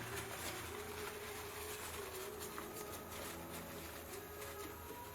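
Faint rustling and light clicks of paper being handled and tucked around a car's brake fluid reservoir, over a steady low background hum.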